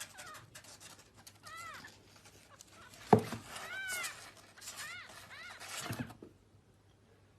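A cat meowing in short, high calls, about four times, with a sharp thump about three seconds in.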